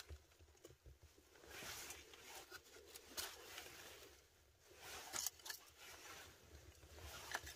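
Faint rustling of thin dry sticks being laid by hand onto a small kindling fire in a stone fireplace, with a few light clicks of wood.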